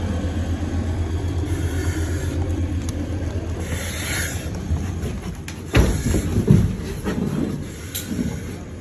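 Fire engine's diesel engine running steadily, a low rumble. About six seconds in it gives way to a sudden loud thump followed by a few irregular knocks and bumps.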